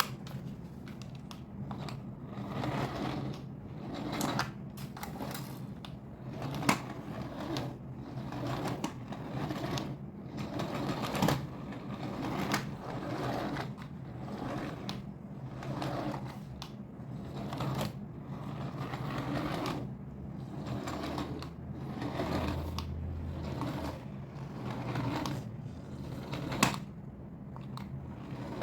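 Irregular clicking and rustling of plastic objects and packaging being handled, over a steady low hum.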